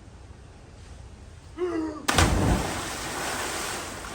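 A short yell, then a person plunging into a swimming pool about two seconds in: one loud splash followed by water churning and settling.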